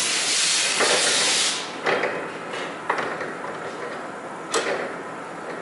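A loud hiss of escaping air lasting about two seconds, followed by four separate knocks or clanks spaced a second or more apart.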